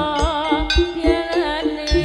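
Live Javanese jaranan gamelan music: drums beating a regular pulse under repeated struck metal notes, with a wavering lead melody line above.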